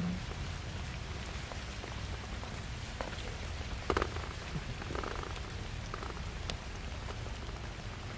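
A crowd of cats eating cooked rice off a metal tray: crackly chewing with scattered sharp clicks, the loudest about four seconds in, over a steady low rumble.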